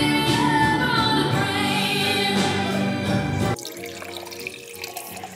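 Background music with a singing voice, which cuts off about three and a half seconds in. After it, quieter, wine pours from a bottle into a wine glass.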